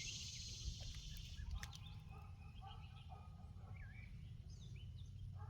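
Faint pond-side outdoor ambience: scattered short bird chirps and calls, with a steady high insect trill that fades out about a second and a half in, over a low steady rumble of wind.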